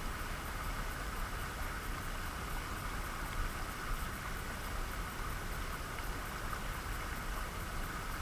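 Mountain trout stream running over a shallow riffle: a steady rush of water.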